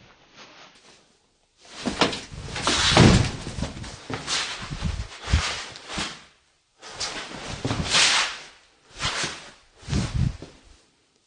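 A door being shoved and banged open, with repeated bangs, rattles and scuffing in several bouts, loudest about three seconds in.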